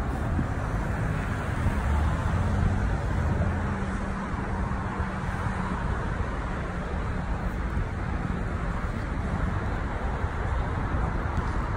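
Steady road traffic noise from a busy street, with a passing vehicle's low engine hum standing out between about two and four seconds in.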